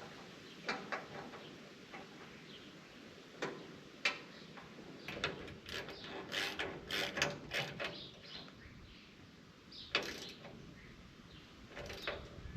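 Hand-tool work on the baler's metal fittings: scattered sharp clicks and clanks, with a quick run of clicks in the middle.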